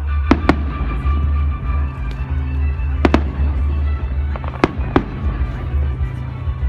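Fireworks exploding: six sharp bangs in three close pairs, a second or two apart.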